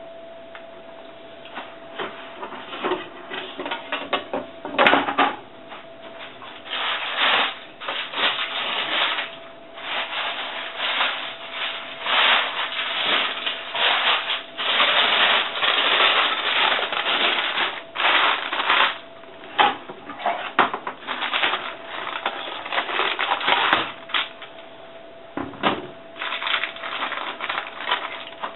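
Baking paper rustling and crinkling as it is handled, in irregular bursts that are busiest through the middle, over a faint steady hum.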